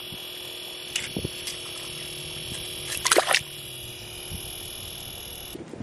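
A largemouth bass splashing in the water of an ice-fishing hole as it is let go. A few small splashes come about a second in, then a short, louder splash about three seconds in.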